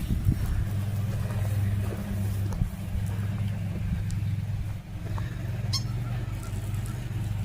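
An engine running steadily with a low, even hum, with a short high chirp about six seconds in.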